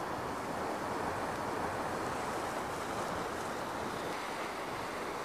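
Sea surf washing and breaking against a rocky shore below a cliff, a steady rushing noise.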